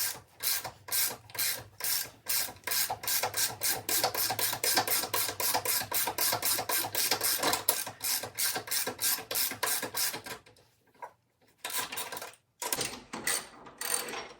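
Ratchet wrench being worked back and forth to loosen a footpeg mounting bolt, its pawl clicking in rapid strokes, about three to four a second. The rhythm stops about ten seconds in, then a few slower strokes follow near the end.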